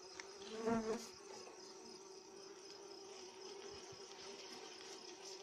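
Bees buzzing in a faint, steady hum inside their tree-hollow nest while a hand reaches in to pull out comb, with a brief human murmur about a second in.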